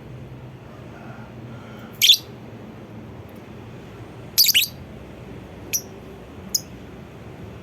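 Lovebird giving sharp, high-pitched calls: one at about two seconds, a quick run of calls a little past halfway, then two short chirps near the end, over a steady low background hiss.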